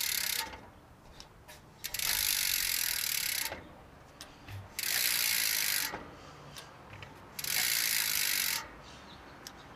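Rear hub of a Mafia Bomma 29 wheelie bike ratcheting: the freewheel pawls buzz as the wheel turns. It comes in four bursts of about a second each, with short pauses between.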